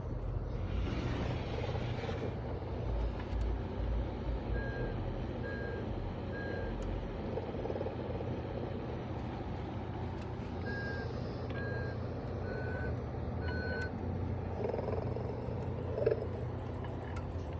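Animated snoring, rocking Santa Claus figure running: a steady low motor hum, with a breathy snore near the start and again near the end. Short high beeps come about a second apart in between.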